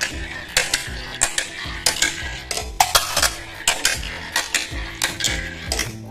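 Marbles clicking and clattering along a toy marble run: an irregular series of sharp, hard clicks, two or three a second.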